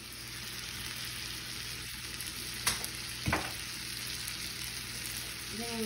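Steak frying in melted seasoned butter in a stainless steel skillet: a steady sizzle, with two sharp clicks a little over halfway through.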